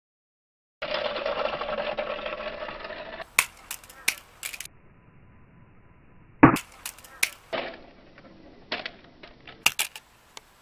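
A small die-cast toy car rolling over concrete with a steady rattling rumble. It then tumbles down concrete steps in a string of sharp clacks and knocks, the loudest about six and a half seconds in.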